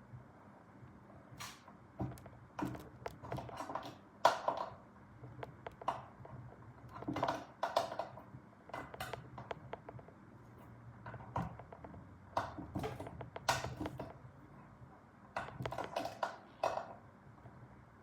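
Swiss Army knife can opener blade working around the tin lid of a can: irregular metal clicks, pops and short scraping strokes, one every half second to a second, with short pauses between runs.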